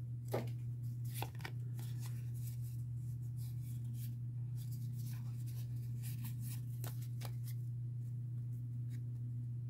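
Pokémon trading cards being slid and flipped through by hand, with light scattered clicks and rustles over a steady low hum.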